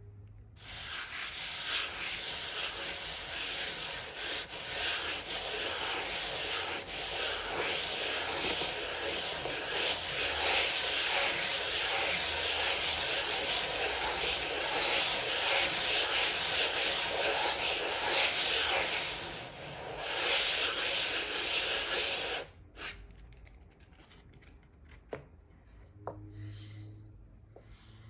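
Sandpaper rubbed by hand over a piece of wood: a steady scratchy rasp that runs for about twenty seconds, easing off briefly once near the end, then stops, leaving a few faint clicks.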